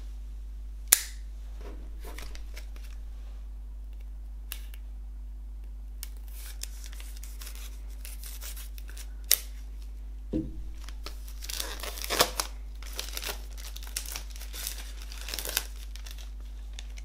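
Folding knife slitting the plastic shrink wrap on a CD digipak, then the film being torn and peeled off, with a dense run of crackling and scratching over the second half. There is a single sharp click about a second in, and a low steady hum underneath.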